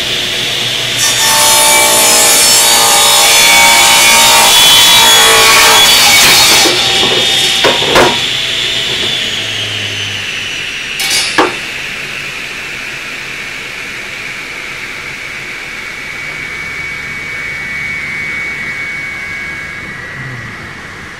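Benchtop table saw cutting through a wooden block for about five seconds. The motor is then switched off and the blade coasts down with a slowly falling whine. Two sharp knocks come partway through the spin-down.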